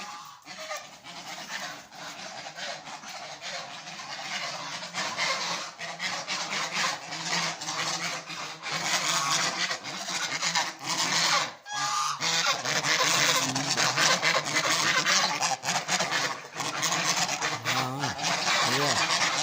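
Pet birds calling noisily and continuously, a dense chorus of overlapping calls, as they demand food. The calling grows louder over the first half and stays loud.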